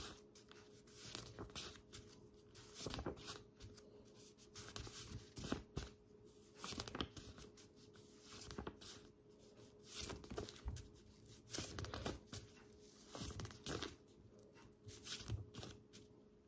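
Stiff paper flashcards being flipped one after another from a stack, a short rustle and slide about every one and a half to two seconds, with near silence between.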